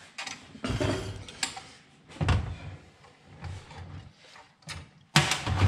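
Clatter of hand tools being handled: a few separate knocks and clunks, the loudest near the end.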